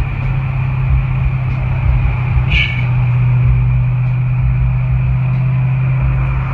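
2015 Camaro SS's 6.2-litre V8, fitted with headers and a 3-inch exhaust with high-flow cats, running steadily with a low drone. A brief high chirp sounds about two and a half seconds in.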